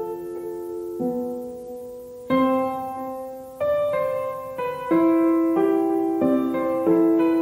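Background piano music: notes and chords struck every second or so and left to ring, fading between strikes.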